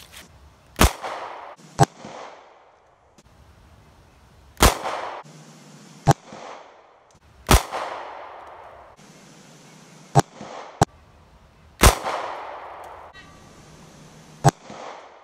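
A 9mm pistol fired several times at intervals: about four loud shots, each with a fading echo, and shorter sharp cracks between them.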